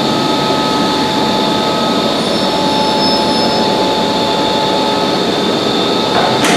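MTR C-Train metro train moving slowly along the platform: a steady hum and whine of its running equipment, with several held tones. A sharp click near the end.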